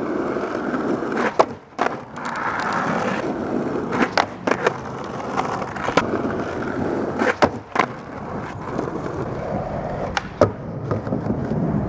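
Skateboard wheels rolling steadily, broken by about nine sharp clacks and impacts of the board, some in quick pairs.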